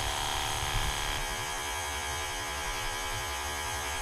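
Ingco 20 V cordless pressure washer's pump motor running steadily, its water jet spraying into a plastic recycling bin.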